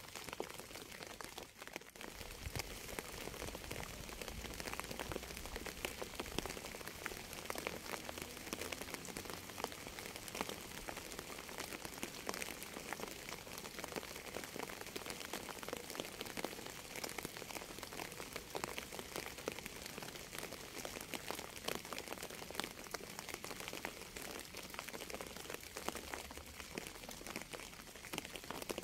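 Steady rain, an even hiss dotted with many small individual drop hits.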